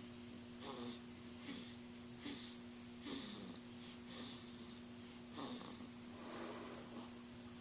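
Faint snoring: short, snorting breaths repeating about once a second, some dropping in pitch, over a steady low hum.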